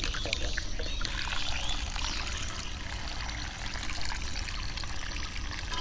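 Water pouring and trickling as basmati rice is washed in a steel bowl: water poured in from a plastic jug, then the cloudy rinse water tipped out of the bowl onto the ground.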